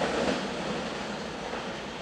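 Keihan electric train's running noise dying away over the first second as it moves off, leaving a steady rushing background noise.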